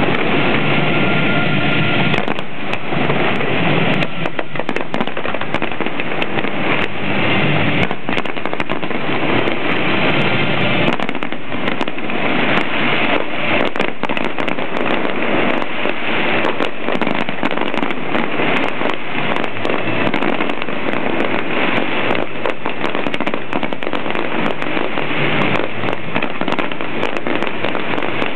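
Fireworks display: a dense, unbroken barrage of aerial shell bursts and crackling, many bangs a second overlapping one another.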